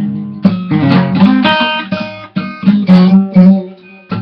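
Guitar playing a blues song: a run of strummed chords, each struck sharply and left to ring, roughly one every half second to second.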